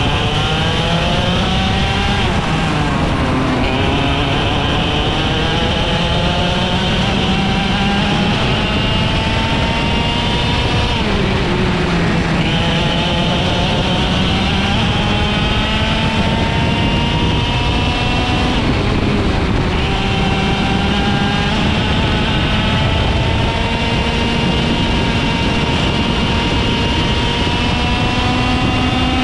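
IAME X30 125cc two-stroke kart engine at racing speed. Its pitch climbs steadily for several seconds at a time and drops sharply three times as the throttle is lifted for corners, then climbs again.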